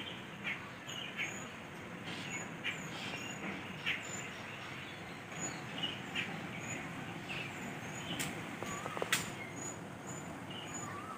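Water sloshing and splashing in a steel bowl as raw mutton pieces are rinsed and turned by hand, with irregular small splashes. Behind it, a bird chirps a short high note about once a second.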